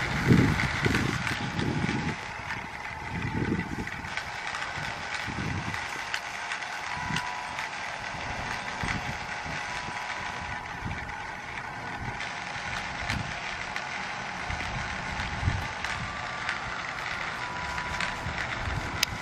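A steady, dense buzzing drone with a few faint held tones in it, under irregular low rumbles of wind on the microphone that are strongest in the first few seconds.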